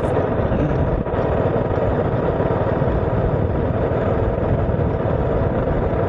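Steady vehicle engine and road noise from a moving vehicle, heard up close and without a break.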